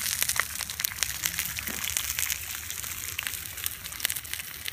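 Bacon sizzling in a cast-iron skillet over a campfire: a steady hiss with many quick pops and crackles of spattering fat.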